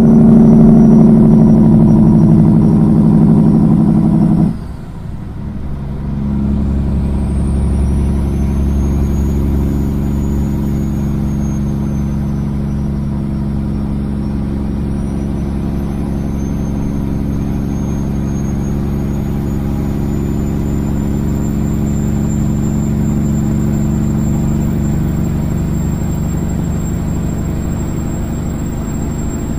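Kenworth semi truck's diesel engine on straight pipes pulling the loaded rig, heard from the cab. The engine sound drops off abruptly about four and a half seconds in, comes back a moment later and then runs on steadily.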